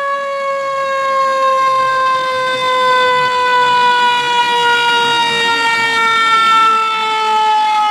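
Fire truck siren sounding one long tone that falls slowly in pitch as it winds down.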